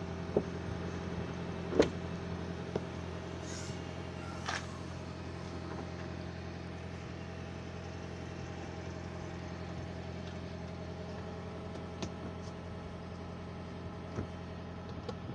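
Toyota Prius's petrol engine running at a steady idle, a low hum of several tones, heard from the rear of the car. A sharp click a couple of seconds in and a knock a couple of seconds later as the tailgate is unlatched and lifted.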